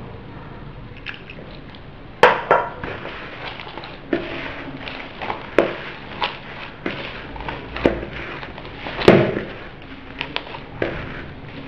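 Hands kneading soft, sticky bread dough in a mixing bowl: irregular squelches, knocks and thumps as the dough is pressed and slapped against the bowl, with the loudest knocks about two seconds in and again toward the end. The dough is being brought together after warm water has been added.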